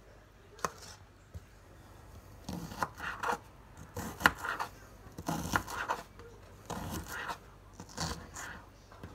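Kitchen knife chopping vegetables, onion among them, on a plastic cutting board. Short runs of quick knife strikes come about once a second, with brief pauses between them.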